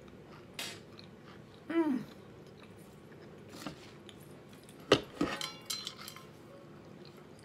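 Quiet chewing with a short falling hum of the voice about two seconds in. About five seconds in come sharp clicks and clinks as a fork is laid in a foil pie tin and an insulated water bottle is picked up.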